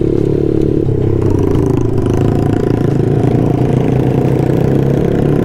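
A 125cc pit bike's single-cylinder four-stroke engine running under way at a fairly steady pitch, heard close-up from the bike itself through a corner.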